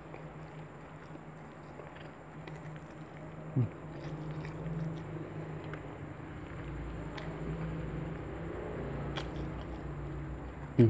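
A person chewing and biting food close to the microphone: mouth noises of rice and chicken being eaten, with a steady low hum behind from about four seconds in.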